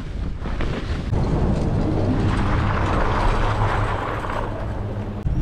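Wind rushing over a helmet-camera microphone during a ski run, with skis hissing and scraping over cut-up snow; the scraping is loudest in the middle.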